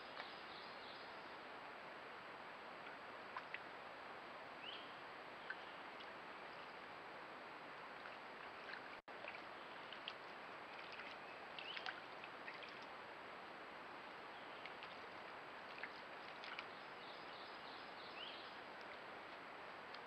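Faint steady trickle of a shallow creek, with scattered soft ticks and rustles and a few short high chirps.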